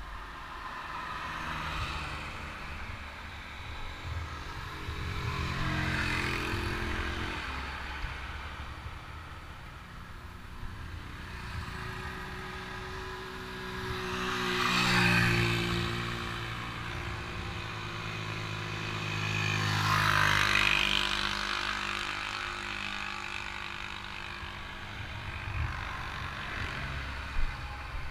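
Motor vehicles passing one after another on the road, each engine swelling up and then fading away with its pitch dropping, the two loudest in the second half, over a steady low rumble.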